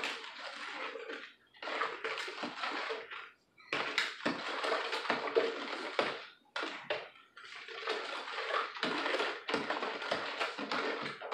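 A spoon stirring pineapple juice and water in a plastic pitcher, in runs of a second or two with short breaks between them.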